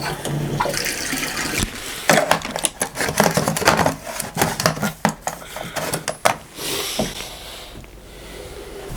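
Water running, with repeated knocks and clicks from handling plumbing parts and a hiss near the end.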